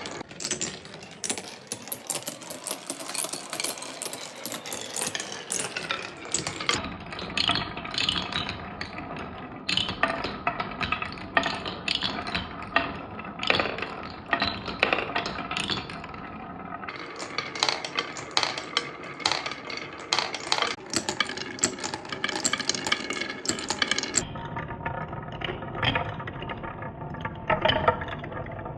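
Glass marbles rolling and clattering down a wooden marble run: a continuous rolling hum with many quick clicks and knocks as they strike the track.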